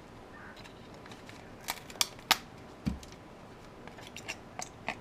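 A handful of separate sharp clicks and snips from small plastic and metal parts being cut and handled as a smoke alarm is taken apart, one of them with a dull knock about three seconds in.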